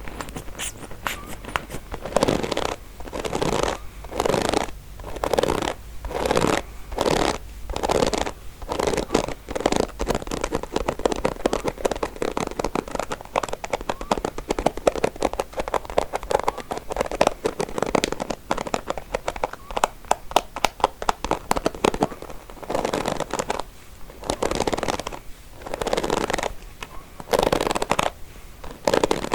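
Combs' teeth scratched and scraped in repeated strokes of about one per second, with a stretch of quick, dense ticking in the middle before the slower strokes return.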